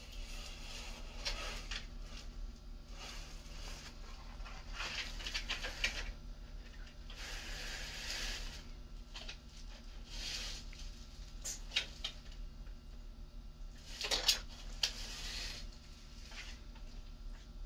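A monitor lizard clambering into a shallow plastic paddling pool: its claws click and scrape on the plastic, and water sloshes and splashes as it wades, in irregular bursts with a cluster of sharp clicks late on.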